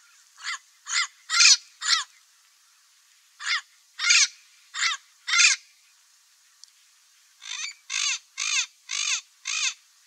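Parrot calling: short, high calls repeated in three bouts of four or five, with brief pauses between the bouts.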